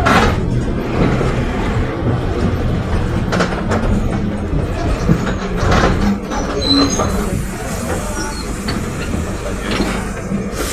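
Caio Apache VIP IV city bus on a Mercedes-Benz OF 1721 BlueTec 5 diesel chassis on the move: a steady low engine drone with body rattles, a few sharp knocks and a brief squeak.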